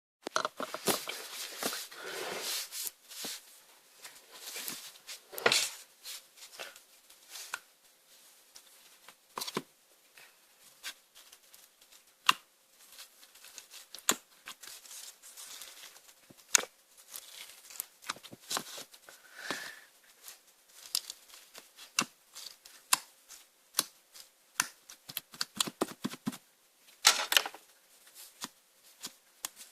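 Clear slime mixed with crushed magic sponge being squeezed and stretched by hand, giving irregular crackling clicks and air-bubble pops with a few longer squelches.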